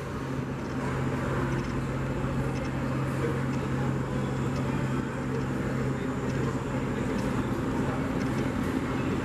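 Airport terminal ambience: a steady low hum over an even wash of background noise.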